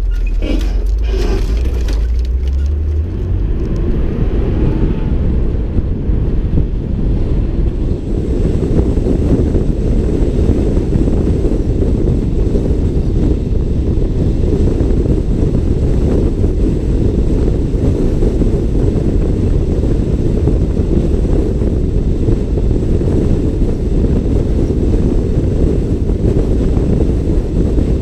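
A vehicle driving with wind buffeting the microphone. There are a few knocks in the first two seconds, and from about three seconds in the low steady hum gives way to a dense, even wind noise.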